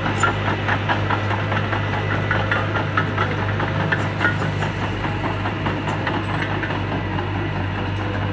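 A small Mitsubishi crawler bulldozer's diesel engine running steadily as the machine drives over loose soil, with a continual clanking of its steel tracks.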